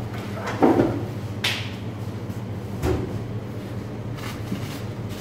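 Steady low hum of restaurant-kitchen equipment, with three short knocks and clatters in the first three seconds as a baking tray is handled.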